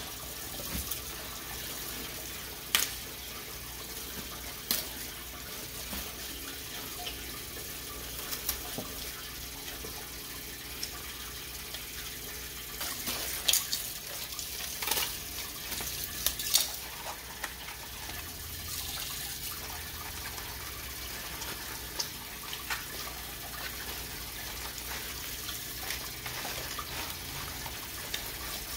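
Kitchen faucet running into a sink while mustard greens are rinsed and rubbed by hand in a basin of water. A steady rush of water is broken by a few sharp splashes and knocks, most of them in the middle of the stretch.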